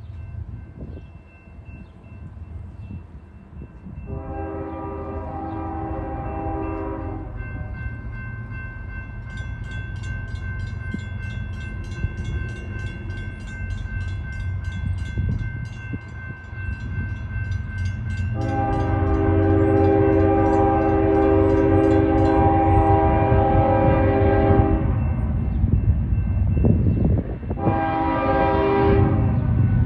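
CSX freight locomotive's horn sounding three blasts over the rumble of the approaching train: a short blast about four seconds in, a long one from about halfway to near the end, then a short one. The train rumble grows louder, and a high, steady ringing sits beneath the horn.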